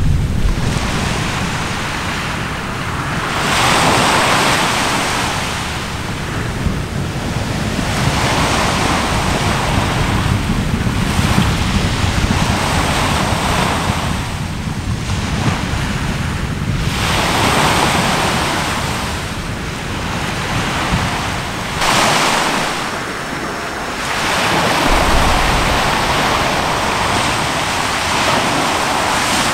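Sea surf washing in swells that rise and fall about every three seconds, over a steady low rumble of wind on the microphone.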